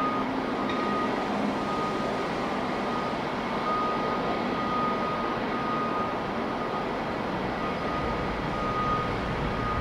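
Steady jet noise of an Airbus A330-300 on approach, with a faint constant whine and wind rumbling on the microphone.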